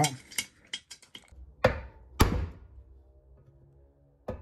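Soft-wood block knocked against a spoked motorcycle wheel's steel rim to knock a buckle out of it. There are two sharp knocks about half a second apart, a second and a half in, and a lighter knock near the end.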